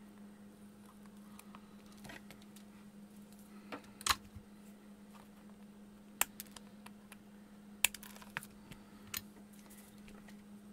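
A few sharp clicks of flush cutters snipping component leads on a perfboard, with lighter ticks of tools against the board. A steady low hum runs underneath.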